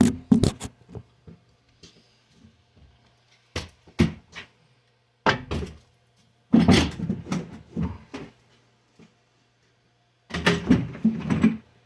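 Clunks and knocks of a chainsaw being handled and set back in place, in about five separate bursts, the loudest a little past the middle and near the end. A faint low steady hum runs underneath.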